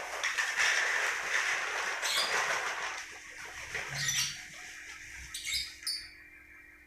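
Lovebird giving short, high chirps a few times, over a rustling or flapping noise that fills the first few seconds.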